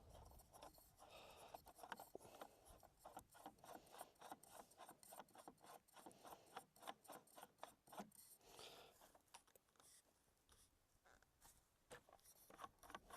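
Faint repeated rubbing strokes with small clicks as a cleaning rod is worked through the barrel of a Sako Finnlight .270 rifle, clearing carbon and copper fouling between break-in shots. The strokes thin out about nine seconds in.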